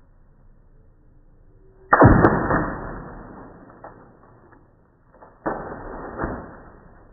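A water-filled latex balloon slapping down onto a concrete patio twice, about three and a half seconds apart, each hit dying away over a second or so; the balloon does not burst.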